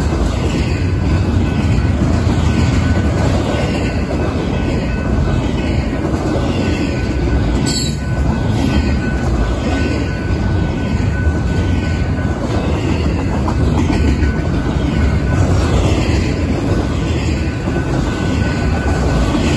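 Double-stack intermodal well cars rolling past with a steady low rumble of steel wheels on rail. A thin, steady wheel squeal rides over it and fades out for a few seconds past the middle.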